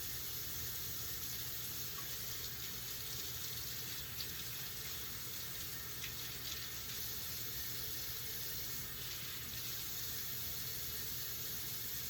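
Kitchen faucet running steadily into the sink, with a few faint clicks.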